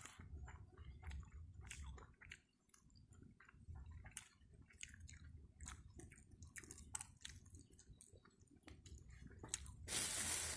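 Close chewing of a mouthful of rice and vegetables, with many small scattered clicks and crunches, some from a spoon in a plastic bowl. A louder rustling burst comes near the end.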